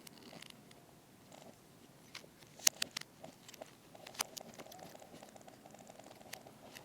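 Small hard plastic clicks from handling a Transformers action figure, the loudest a sharp click a little before the middle. In the second half this turns into a fast, even rattle.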